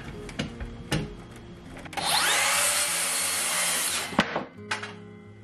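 Circular saw spinning up with a rising whine and cutting through a board for about two seconds, then cutting off sharply. The offcut drops with a couple of knocks just after. A few light knocks come before the cut.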